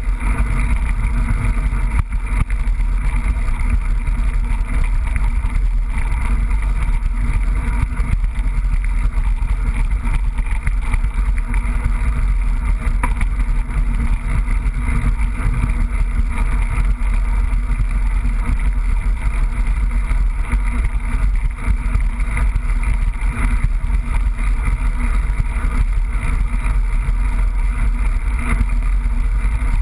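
Mountain-bike riding noise picked up on a GoPro action camera: a steady, loud rumble of wind and tyres on the trail, with many small knocks and rattles as the bike runs over bumps.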